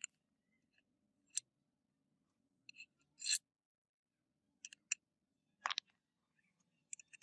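Light clicks and taps of small brass guard plates and wooden handle blocks knocking together and set down on concrete while a knife handle is dry-fitted onto the tang. About eight separate short taps, the loudest about three seconds in.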